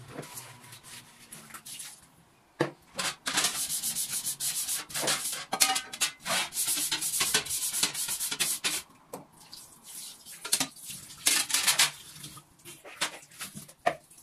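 Household cleaning: repeated scrubbing strokes on a surface in busy bursts, pausing briefly before a last short run of scrubbing, with a few light knocks near the end.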